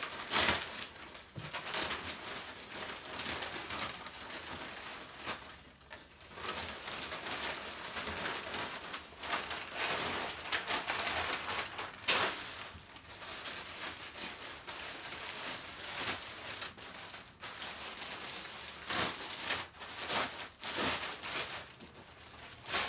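Plastic packaging rustling and crinkling in irregular bursts, with a few sharp crackles: a poly mailer being opened and a hoodie pulled out of its clear plastic bag.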